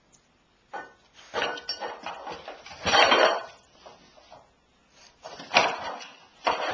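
Aluminium pots clattering and scraping as a cocker spaniel puppy noses at them, in several bursts with brief metallic ringing.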